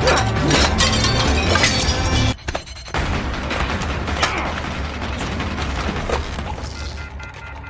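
Fight-scene sound effects: plates smashing and blows landing in quick succession, over a music score with a steady bass. The sound drops out briefly a little over two seconds in, then the hits carry on.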